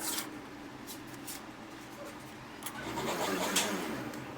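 Handling noise from a Honda CD 70's chain cover being cleaned and fitted: a few sharp clicks, then a rough scraping rub that swells for about a second near the end.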